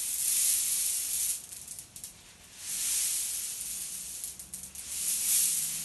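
A cloth pillow filled with cherry pits shaken close by, the pits rattling and rustling inside the fabric in three swells, with a few light clicks between them.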